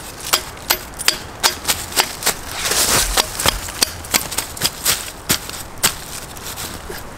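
Steel head of a short-handled pick striking the ground again and again, about two sharp clicks a second, with a brief rustle of leaves and soil about three seconds in. The strikes are meeting rock just under the surface.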